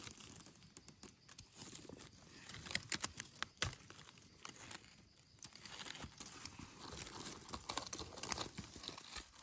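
Dry leaf litter rustling and crackling as gloved hands dig and pull wild mushrooms from the forest floor, with a cluster of sharper crackles about three seconds in.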